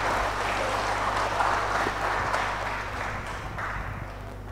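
Congregation applauding: dense, even clapping that thins out and fades toward the end.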